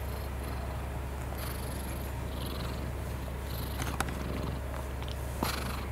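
Black-and-white long-haired cat purring steadily while being stroked, a low continuous rumble, with two short clicks in the second half.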